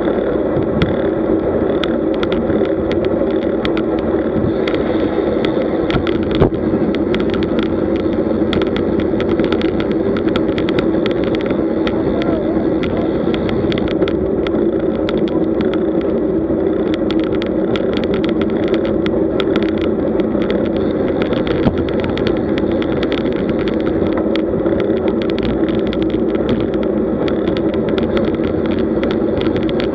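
Road bike riding in a group at about 30 km/h, heard from a bike-mounted camera. Steady wind and tyre-on-asphalt rumble runs throughout, with frequent small clicks and rattles.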